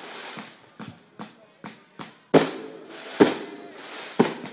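Aerial fireworks bursting overhead: an uneven series of sharp bangs, each trailing off. Several smaller ones come in the first two seconds, and the loudest come about two and a half and three and a quarter seconds in.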